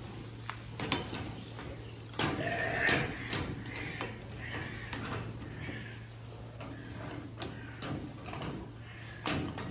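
Alpine goat bleating, one call about two seconds in lasting over a second, with scattered sharp clicks and knocks over a low steady hum.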